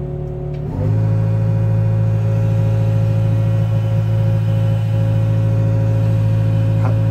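Wheeled excavator's diesel engine running close by. About a second in it revs up and then holds a steady, higher speed to work the hydraulic arm for a lift.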